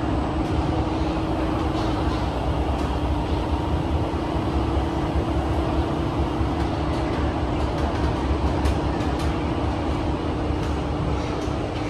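Cabin noise of a Kawasaki–CRRC Sifang CT251 metro train running at speed through a tunnel: a steady rumble of wheels on rail with a constant hum and a few light ticks in the last few seconds.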